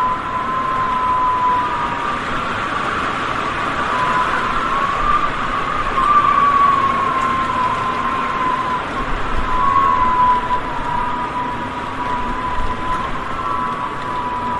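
Strong wind gusting, with a high wavering whistle over a steady noise.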